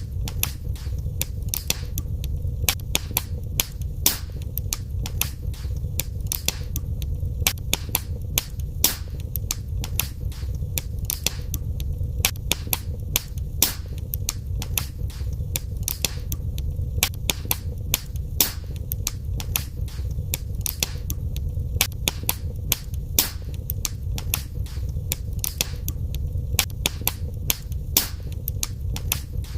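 Wood fire burning in a fireplace: dense, irregular crackling and sharp pops of burning logs, several a second, over a steady low rumble of the flames.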